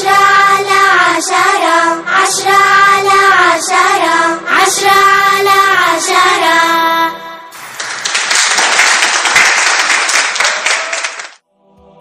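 A child's voice singing an Arabic nasheed over backing music; about halfway through the song breaks into a few seconds of clapping, which stops abruptly shortly before the end.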